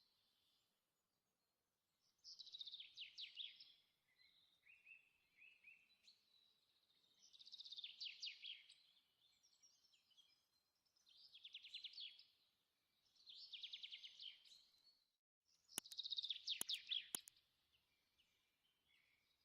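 A songbird singing faint, short trilled phrases, each about a second long, repeated every two to three seconds. A few sharp clicks come about sixteen seconds in.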